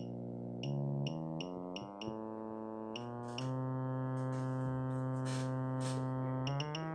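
Test tone from a DDS signal generator played through a 20-watt audio amplifier and its speaker: a low, buzzy tone whose pitch jumps in steps as the generator's frequency knob is turned, with a small click at each step. It holds one pitch for about three seconds in the middle, then starts climbing in steps near the end.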